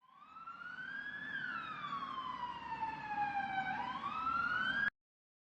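Siren wailing: its pitch climbs for about a second, sinks slowly for over two seconds, then starts climbing again before it cuts off abruptly near the end, over a low rumble.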